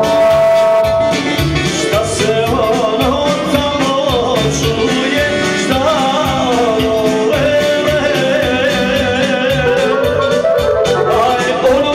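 Live band music: a Korg arranger keyboard plays a wavering lead melody over a steady programmed beat.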